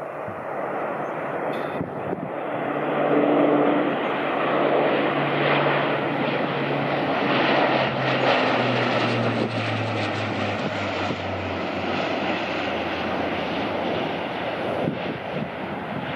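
RAF Lockheed C-130J Hercules four-engine turboprop flying low past, its engine and propeller drone swelling as it approaches. The pitch of the propeller hum drops as it passes, around eight to eleven seconds in, and the sound then eases off as it flies away.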